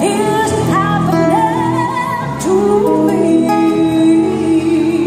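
A woman singing a slow song live through PA speakers, with amplified instrumental accompaniment, her voice gliding between held notes.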